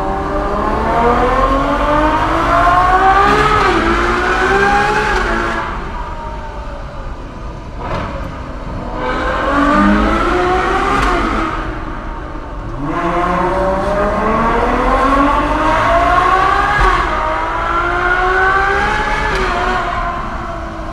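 Ferrari 812 Superfast's 6.5-litre naturally aspirated V12 under hard acceleration: the engine note climbs in pitch, drops sharply at each upshift and climbs again. This happens in three runs, the loudness dipping briefly between them.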